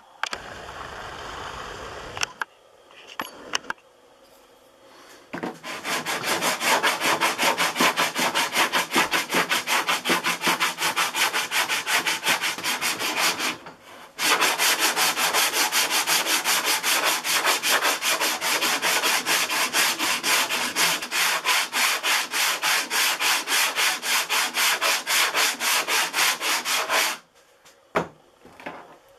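Long sanding block pushed back and forth by hand over hard-set EverCoat body filler, leveling the built-up ridge. It goes at an even rhythm of about four strokes a second, starting about five seconds in, with a short break about halfway and stopping near the end.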